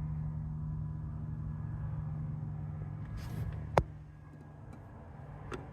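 Steady low hum with a brief rustle and two sharp clicks, the handling noise of a camera and hands moving around in the cramped footwell under a car's dashboard.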